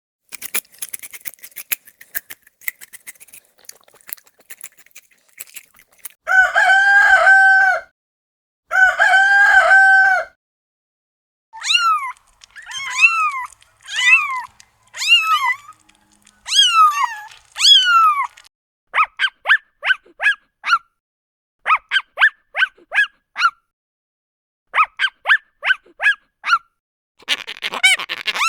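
Chickens: after a few seconds of faint scratchy ticking, a rooster crows twice in long held calls, followed by a string of shorter rising-and-falling calls and then quick repeated clucks in bursts. A noisy burst of a different sound begins right at the end.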